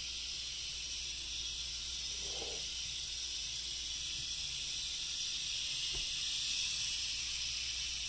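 Steady hiss of steam from a 1973 La Pavoni lever espresso machine, with a faint click about six seconds in.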